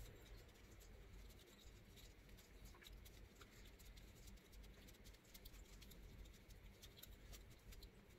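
Faint rustling and scratching of a paper tissue wiping a graphics card's plastic cooling fan, with many small ticks, close to near silence.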